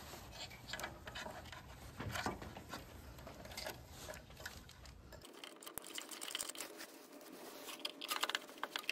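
Faint handling noise of hands and a screwdriver working inside a plasma cutter's open metal casing, fitting a small circuit board among the wires: light scratches and small clicks, coming more often near the end.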